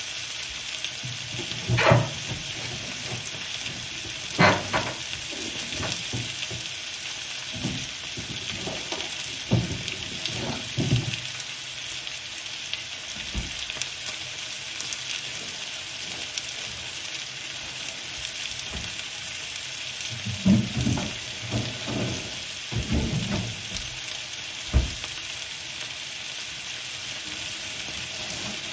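Kitchen handling sounds as groceries are put away: a few knocks and thuds of items being set down and the fridge door being shut, with a cluster of knocks about two-thirds of the way through. A steady hiss lies under it throughout.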